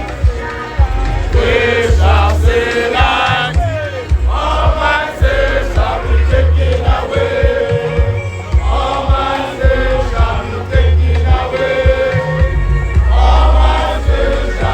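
Loud live music through a PA, with a heavy pulsing bass beat and vocals, and many voices of a crowd chanting and singing along.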